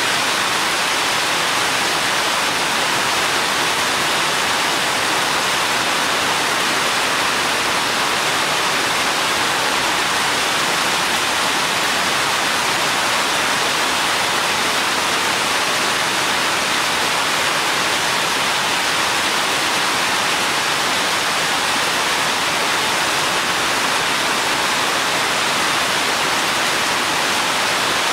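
Steady rain falling on a forest path, an even rush with no single drops, thunder or other events standing out.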